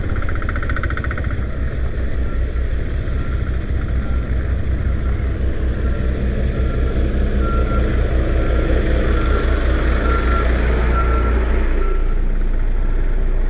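A vehicle engine runs steadily with a low rumble, while a construction machine's reversing alarm beeps repeatedly from about two seconds in until near the end.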